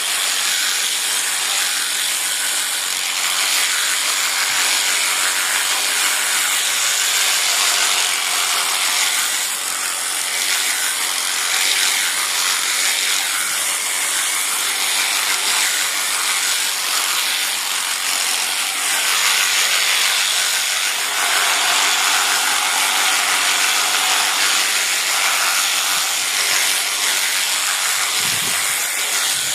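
A loud, steady mechanical noise with no clear rhythm or pitch.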